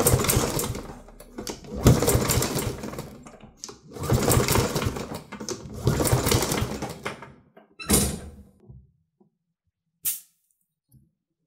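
Briggs & Stratton EX550 lawn mower engine cranked by its pull-cord recoil starter, four pulls in a row with short gaps, turning over without firing because its spark plug is out for a compression test. The gauge reads about 50 psi, a little low. About ten seconds in there is a short hiss as the gauge's pressure is let off.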